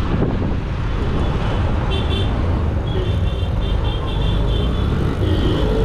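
Steady road traffic noise with a heavy low rumble, and a series of short high-pitched beeps from about two seconds in.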